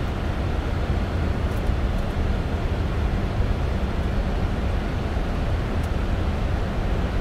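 Steady flight-deck noise of a Boeing 747-400 in flight on approach: an even, low rumble of airflow and engines that holds constant throughout.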